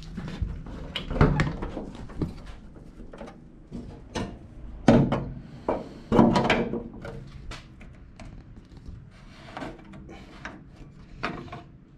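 Irregular clunks, knocks and clatter of tools and parts being handled on a car in a small garage, with the loudest knocks about a second in, near five seconds and about six seconds in.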